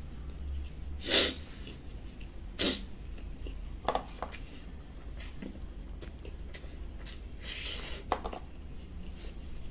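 A person eating gives three sharp, hissing breaths out through pursed lips, the loudest about a second in, with short mouth sounds in between. They are the huffing of someone whose mouth is burning from hot chilli.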